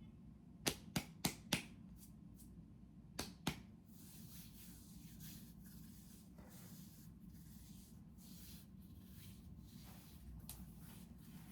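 Sharp hand slaps: four in quick succession about a quarter second apart, then two more a couple of seconds later. Soft rustling and shuffling follow.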